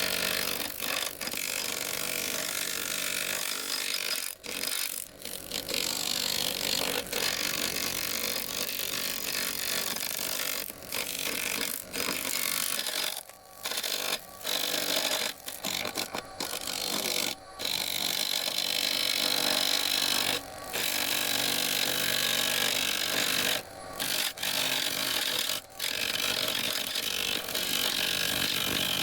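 Woodworking lathe spinning a driftwood and epoxy resin blank while a hand tool works the surface, a steady hissing scrape that breaks off briefly about a dozen times as the tool lifts away, the lathe still running underneath.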